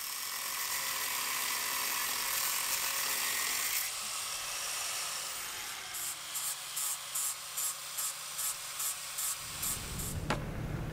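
A small handheld power tool whirring steadily for about four seconds, then running in short regular pulses, two or three a second, for the last few seconds.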